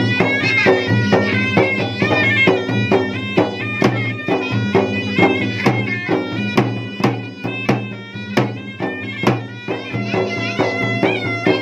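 Makassarese gendang drums beating a steady, dense run of strokes, under a shrill reed pipe holding a wavering melody over a sustained tone.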